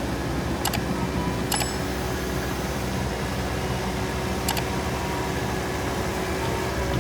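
Spider excavator's engine running steadily, with three sharp metallic clicks: about a second in, near two seconds (briefly ringing) and about four and a half seconds in.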